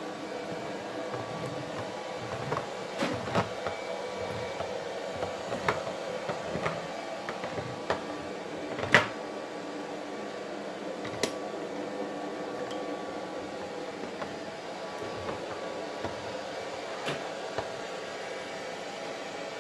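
Handheld manual can opener cutting around the rim of a tin can: scattered clicks and scrapes, the sharpest about nine seconds in, over a steady background hum.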